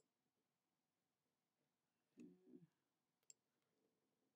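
Near silence, with a few faint clicks from a computer mouse and keyboard.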